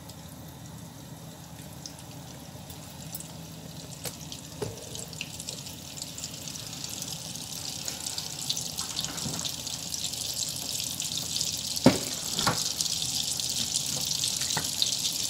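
Butter melting in hot oil in a frying pan, sizzling and crackling more and more as the fat heats up and begins to foam. Two sharp clicks come about twelve seconds in.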